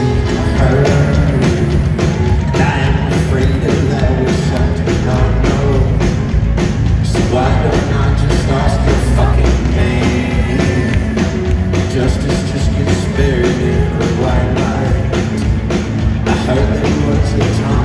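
A live rock band playing loud in a concert hall, heard from the crowd: drums, guitars and keyboards under a male lead vocal.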